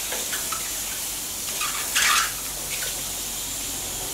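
Button mushrooms and onion slices sizzling on a hot electric grill plate, the mushrooms letting out short high squeaks and whines. The loudest squeal comes about two seconds in.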